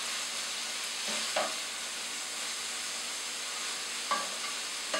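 Diced onion, garlic and red bell pepper sizzling steadily in oil in a nonstick skillet, being sautéed until soft. A utensil stirs them, with a few short scrapes against the pan.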